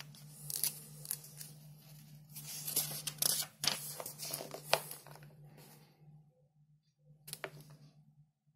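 Paper pages of a booklet being turned by hand, rustling for about five seconds, then one short rustle near the end.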